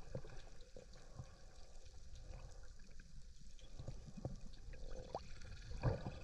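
Faint underwater sound picked up through a camera's waterproof housing: a low water rumble with scattered small clicks and knocks, and a louder knock near the end.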